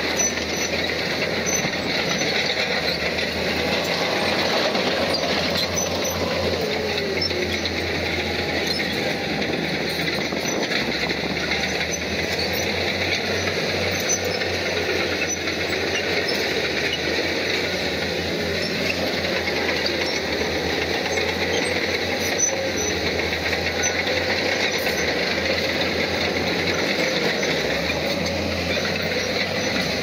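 Crawler bulldozer working: a steady diesel engine with the high squeal and clatter of its steel tracks.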